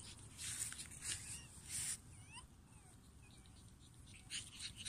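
Pug puppies giving faint, short, high squeaks and whimpers as they play, with a few bursts of rustling noise, the loudest near the start and again near the end.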